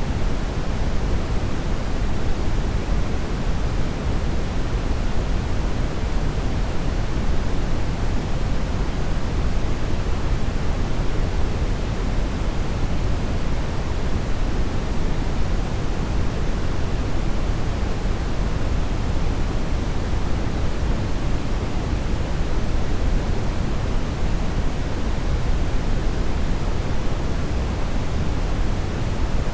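Steady, unchanging brown noise: a deep, even rush weighted toward the low end, with no tones or breaks.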